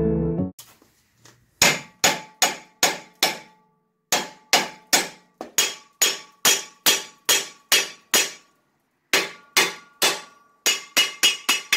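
Hammer banging on the tie rod end at the steering knuckle to vibrate it loose: three runs of quick, ringing metal blows, about three a second, the last run faster.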